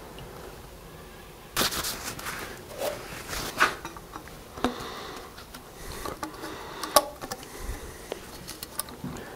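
Handling noise from a rubber coolant hose with a metal hose clamp being picked up and worked in the hands: rustling that starts about one and a half seconds in, with scattered light clicks and knocks.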